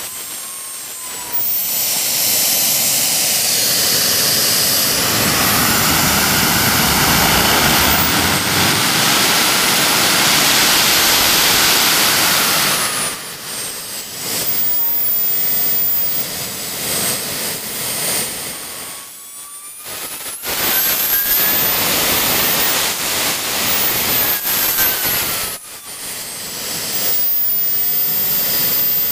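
Jet Central Falcon 100 model gas turbine running on kerosene: a loud roar and hiss with a high whine that rises and falls in pitch as the throttle is moved up and down. It drops back to a quieter level three times and spools up again after each.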